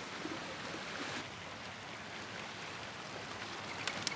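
Steady outdoor background hiss with no clear single source. Near the end come a few faint clicks and a thin chirping tone.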